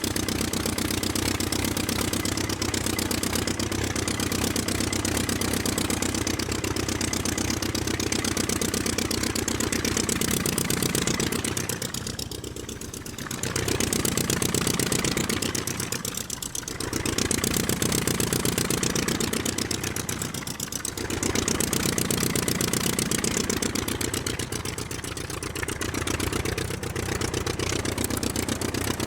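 Sound effect of WW2 piston aircraft engines running steadily, a low engine drone that dips briefly several times.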